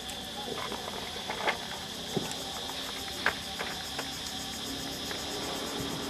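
Steady high insect chorus, like crickets, with a few sharp clicks and knocks as puppies gnaw and push a hard plastic toy; the loudest clicks come about a second and a half and three seconds in.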